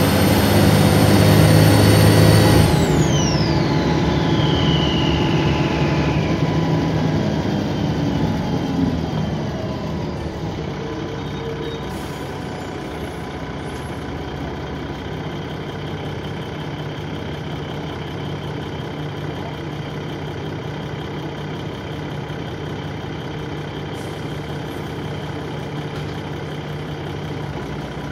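Dennis Trident 2 double-decker bus engine heard on board, with a loud, high turbo whine that falls steadily in pitch and fades over a few seconds as the engine comes off load. After that the engine settles to a steady idle.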